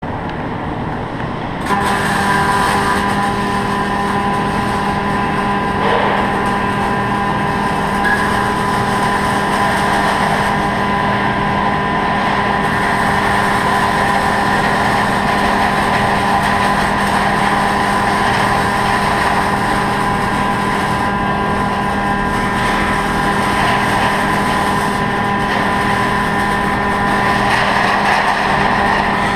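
REIS robotic MIG welding cell at work: a steady hum with several tones under a dense noise, louder from about two seconds in.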